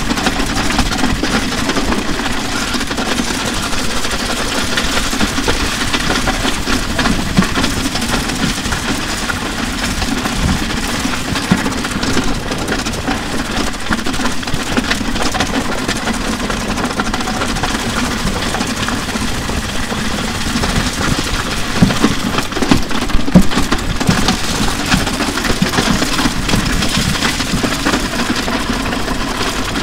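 A drum kit and an electric guitar being dragged over wet asphalt, picked up through the guitar's line output and a drum overhead mic: a harsh, steady scraping rattle over a low drone, with scattered sharper knocks and a few louder ones a little past the middle.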